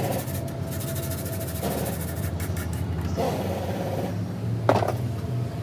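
Steady low engine-like hum, with short scratchy scraping bursts every second or two.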